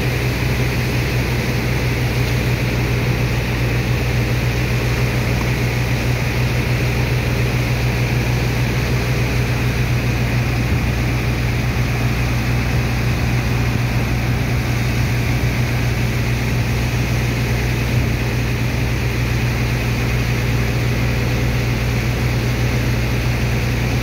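Dredger pump machinery running steadily with a constant low drone while it sucks sand slurry out of the hold.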